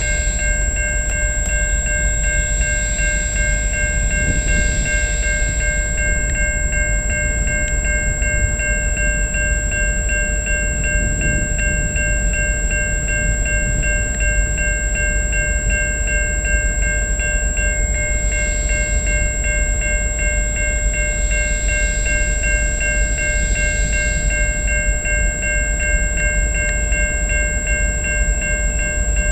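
Railroad crossing bell ringing steadily while the crossing is active, over the low rumble of an approaching freight train's diesel locomotives.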